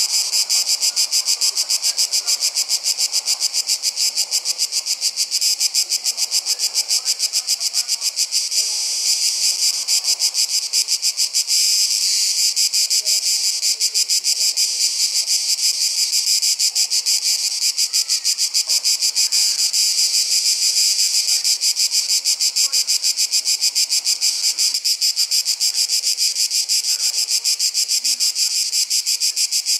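Summer insects singing in a steady, high-pitched chorus of rapid, even pulses that never lets up.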